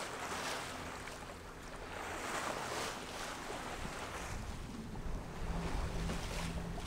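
Water rushing along the hull of a sailing yacht under way, swelling and fading every second or so, with wind on the microphone. Under it runs the low steady hum of the boat's diesel engine ticking over to charge the batteries.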